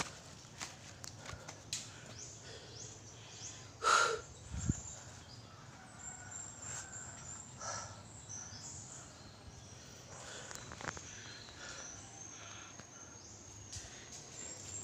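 Footsteps scuffing along a leafy hillside trail, with birds chirping in short high bursts. One short, louder call sounds about four seconds in.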